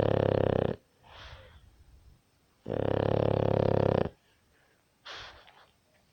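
Snoring: two long, loud snores on the in-breath. The first is already underway and ends just under a second in; the second comes about three seconds in and lasts about a second and a half. Each is followed by a softer, breathy out-breath.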